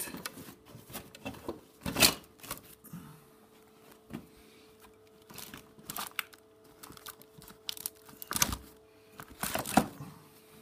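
Chrome hi-hat stand and other metal drum hardware clanking and rustling as they are packed into a soft case: irregular clicks and knocks, with sharper clanks about two seconds in and twice near the end.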